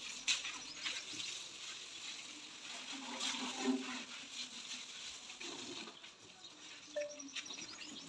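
Water from a garden hose spraying and splashing onto a JCB backhoe loader's tyre and bodywork, an uneven spattering hiss.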